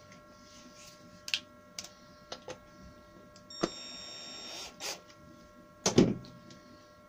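Cordless drill-driver whirring for about a second as it drives a screw through a concealed cabinet hinge into beech, with light handling clicks before it and a loud knock near the end.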